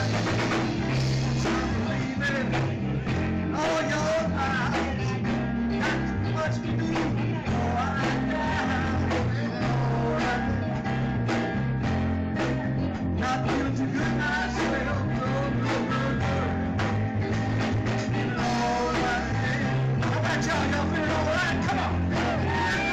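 Live rock band playing a full, steady groove with drums, bass line, guitar and keyboards, and a man singing over it into a microphone.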